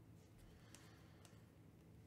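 Near silence: room tone with about three faint clicks of glossy trading cards being flipped through in the hand.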